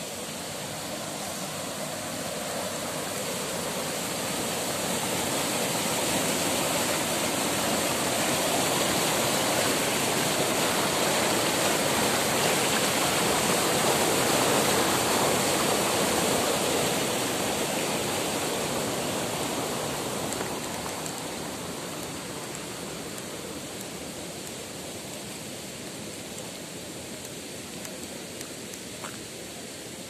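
Water flowing over a low concrete causeway and spilling down its edge into a shallow stream: a steady rushing that swells to its loudest around the middle, then fades.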